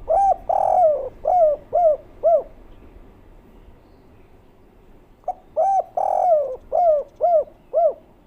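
Spotted dove (derkuku) cooing twice, about five seconds apart. Each phrase opens with a brief note and a longer drawn coo, then ends in three short 'kuk' coos, the 'kuk 3' song type.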